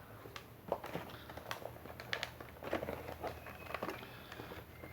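Handling sounds of metal and plastic kit parts: scattered light clicks and taps as the chainsaw guide bar is fitted to the angle grinder converter.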